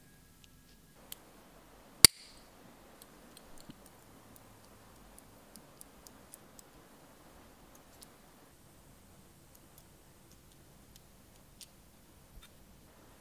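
Small metal clicks and taps as a diecast toy car's chassis and wheels are handled with needle-nose pliers, over a faint rustle of handling. About two seconds in comes one sharp metallic click with a brief ring.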